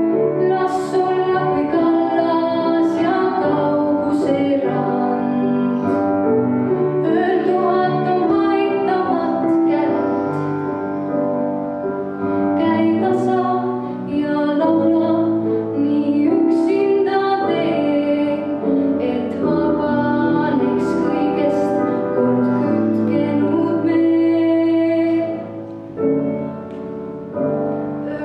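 A girl singing a slow song solo into a microphone, with piano accompaniment.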